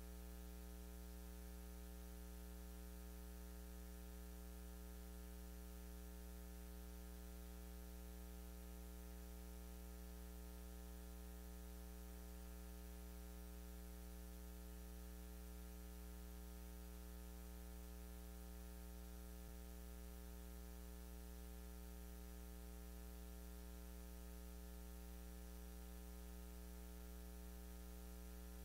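Steady electrical mains hum, a low buzz with a ladder of overtones over faint hiss, unchanging throughout, with no other sound.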